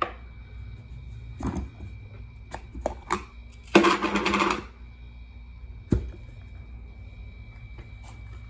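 Rubber rock-tumbler barrel used as a ball mill being opened after 16 hours of milling: clicks as the lid nut and outer lid are worked loose, a loud scraping rustle about four seconds in as the lid is pulled off, and a sharp knock about six seconds in.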